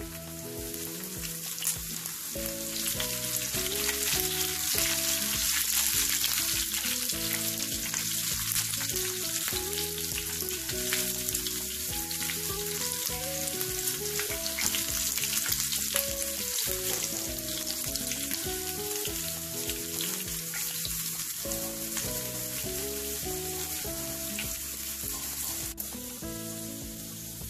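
Hot oil sizzling and crackling with curry leaves, cumin seeds and sliced green chillies in a small pan, a tempering (baghar) for the curry, stirred now and then with a spatula. The sizzle swells a couple of seconds in and eases toward the end, with background music beneath it.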